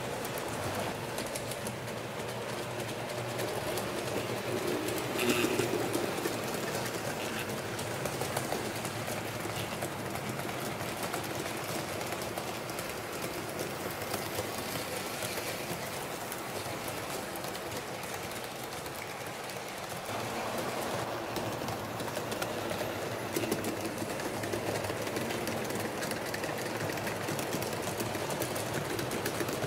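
HO-scale model train running on its track: a steady whir of the small motor and rolling wheel noise, swelling slightly at times.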